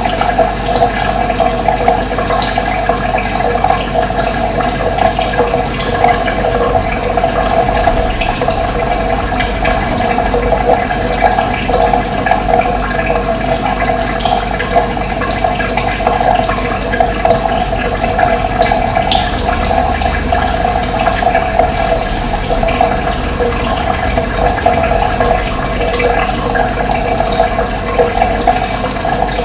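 Steady rush of running water, even and unbroken, its sound centred in the lower-middle range.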